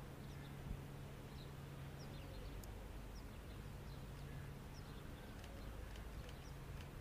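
Faint, scattered chirps of small birds over steady outdoor background noise and a low hum, with one soft low thump just under a second in.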